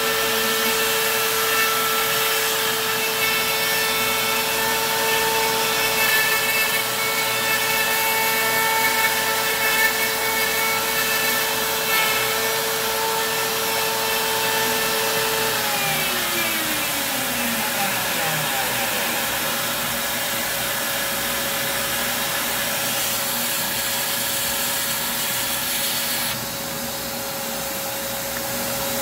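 Compact router with an end mill running at steady speed, milling an 80% lower on its jig. About halfway through it is switched off and its whine falls in pitch over a few seconds as it spins down. A shop vacuum keeps up a steady drone after it.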